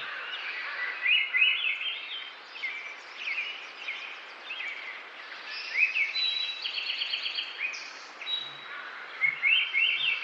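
Several wild songbirds calling and singing over one another: a busy mix of short rising chirps and quick trilled runs of notes.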